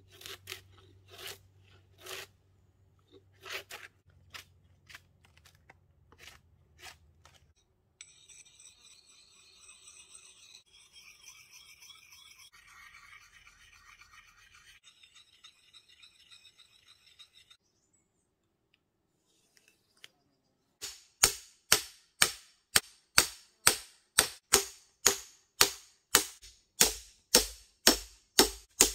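Hand woodworking on a log: scattered wooden knocks, then a long stretch of hissy scraping, then a loud, even run of sharp strikes about two to three a second as an axe is driven into a standing log section to split it.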